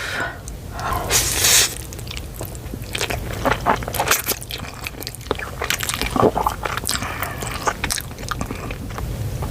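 Close-miked mouth sounds of a person eating a forkful of cheesy ramen noodles: wet chewing with many short smacking clicks.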